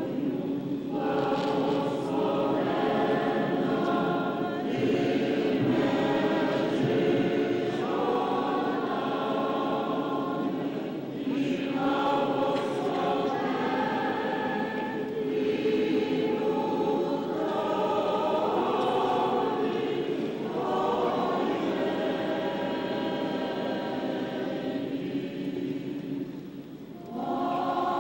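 Choir singing liturgical chant in long sustained phrases with brief pauses between them, the deepest pause near the end.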